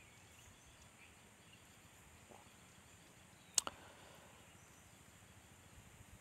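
Near silence: faint background hiss, broken by one sharp click about three and a half seconds in.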